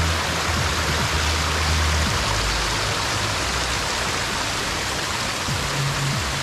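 River water rushing steadily, an even hiss, with a few low held bass notes of background music underneath.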